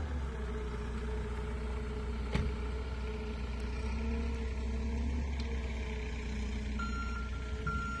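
Heavy vehicle engine running steadily, a wheel loader clearing snow, with one sharp click a little over two seconds in. Near the end a repeating high beep sounds, like a vehicle's reversing alarm.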